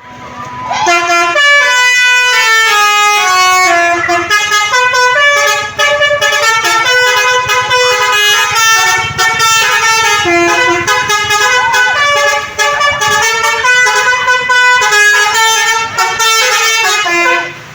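Bus 'telolet' basuri multi-tone horn playing a quick melody of stepped horn notes, starting about a second in and running on until just before the end.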